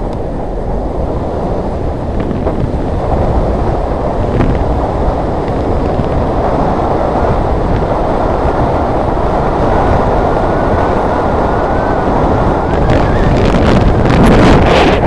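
Wind buffeting the microphone of a camera carried on a moving bicycle: a loud, steady rushing that slowly grows louder, with a few clicks near the end.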